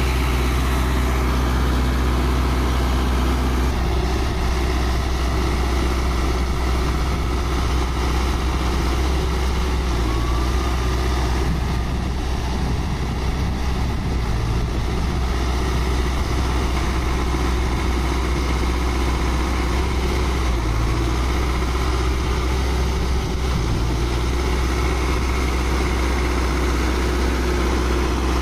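Sonalika Tiger tractor's diesel engine running steadily as it pulls a loaded trailer through deep paddy-field mud, with a strong low hum at a constant level.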